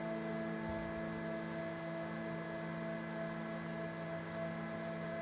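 CNC gantry Z-axis stepper motor, driven by a Leadshine MX4660 stepper driver, whining steadily as it jogs the spindle carriage down at constant speed.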